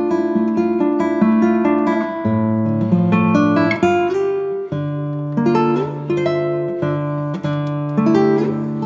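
Background music: acoustic guitar playing plucked notes and chords over a steady bass line.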